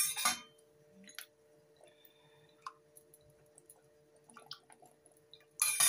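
A metal spoon clinks against a stainless steel saucepan right at the start and again near the end. In between, sweet black soy sauce is poured from a bottle onto the spoon over the pan, with faint drips and small clicks against a steady low hum.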